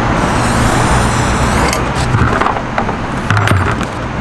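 A firecracker fuse hisses briefly after being lit, then come handling knocks and scrapes and a muffled low thump about three and a half seconds in as the firecracker is shut inside a bin wrapped in sound-absorbing foam. A steady background rumble runs throughout.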